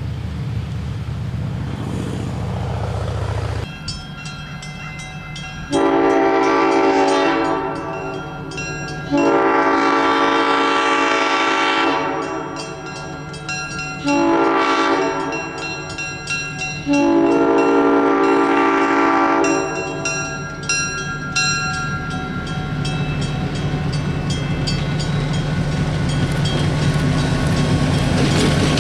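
EMD GP7 diesel locomotive's horn sounding the grade-crossing signal: two long blasts, a short one, then a long one, over the steady ringing of the crossing-signal bells. The locomotive and its train then roll up, the rumble and wheel clatter growing louder near the end.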